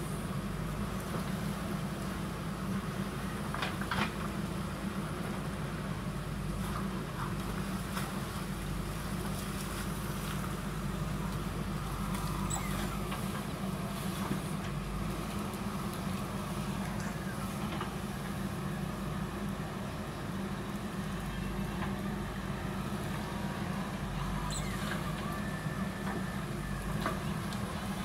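JCB backhoe loader's diesel engine running steadily as the backhoe arm digs and swings, with a few sharp knocks.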